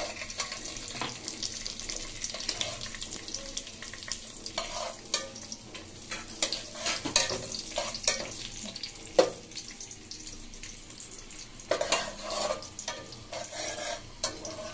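Raisins, crushed cashews, bay leaf, cinnamon and cardamom sizzling in hot ghee in a metal pot, with a metal spatula scraping and clicking against the pot as they are stirred.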